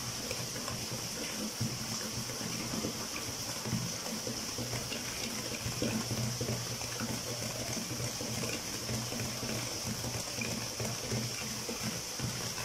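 Runny cake batter being stirred by hand in a plastic bowl: soft wet sloshing and squelching with small scattered ticks. A steady low hum and hiss run underneath.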